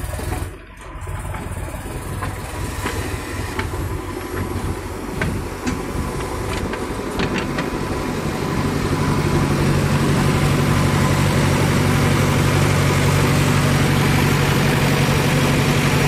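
Diesel engines of a backhoe loader and farm tractors running, with scattered clanks and rattles in the first half. From about eight seconds in, a steady engine drone grows louder and holds.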